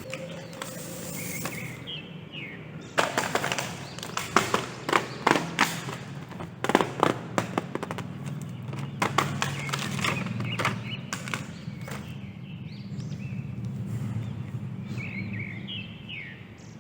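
A run of sharp, irregular cracks and clicks over a steady low hum, lasting several seconds. A few short chirps come near the start and near the end.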